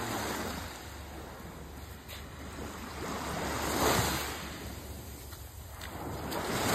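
Small waves breaking and washing up on the beach, with wind rumbling on the microphone; a wave swells about four seconds in and a louder one builds at the end.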